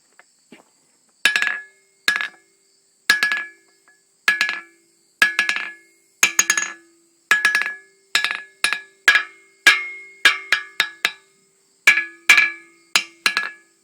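Hammer striking the face of a homemade anvil built from layered half-inch steel plate with a brush-hog blade face, each blow ringing clearly and the hammer bouncing back. The blows start about a second in at roughly one a second, then come quicker in rebounding pairs and runs. The lively rebound shows the anvil has good spring.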